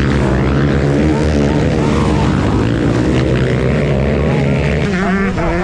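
Motocross dirt bike engines running under load, a loud, steady drone from several machines.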